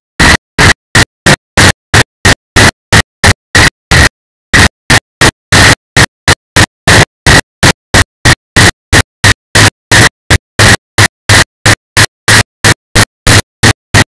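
Corrupted camera audio: loud, harsh bursts of clipped noise about three times a second, each cut off to dead silence, with a slightly longer dropout about four seconds in.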